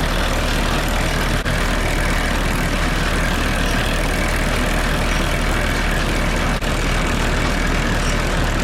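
Tractor diesel engine running steadily while driving a New Holland BR770A round baler, whose belts and chains are turning.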